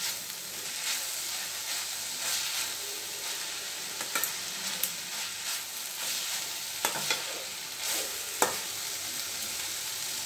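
Grated carrot sautéing in oil in a stainless steel kadai on a low flame, a steady sizzle. The steel spatula scrapes and clinks against the pan several times as the mixture is stirred.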